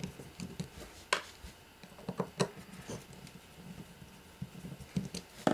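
Screwdriver turning out small countersunk 3 mm slotted screws from a metal connector cover, which come out without much force: a few irregular light clicks and scrapes of the blade in the screw heads.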